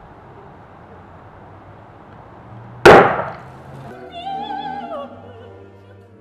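A paint-filled water bottle bursting with a single loud bang about three seconds in. About a second later a woman's operatic voice sings a high held note with vibrato that falls away near the end.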